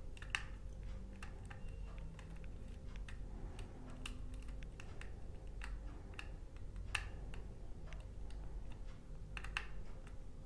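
Small screwdriver clicking and scraping at the screw terminals of a plastic thermostat's terminal block while fastening the external temperature sensor's wires: light, irregular ticks, a couple of them sharper, over a faint low hum.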